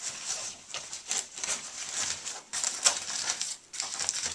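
Crinkling and rasping of a dry bag's TPU-laminated ripstop fabric and its Velcro closure as a hand presses the top shut, in a quick irregular series of strokes with a brief pause near the end.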